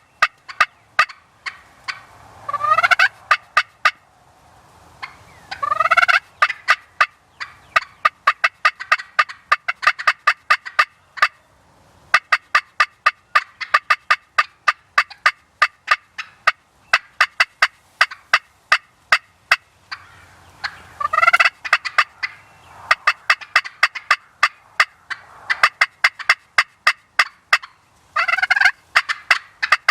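A wild turkey gobbler gobbles four times, each a falling, rattling call. Between the gobbles are fast, continuous runs of short, sharp hen-turkey calls, several notes a second.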